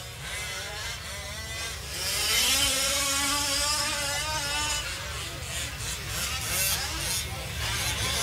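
Small two-stroke engines of 1/5-scale RC off-road trucks buzzing and revving up and down as they race around the track, getting louder about two seconds in.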